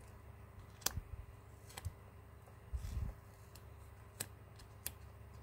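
Faint handling of small plastic phone parts and adhesive tape strips: four short, sharp clicks at uneven intervals and a soft low bump about three seconds in.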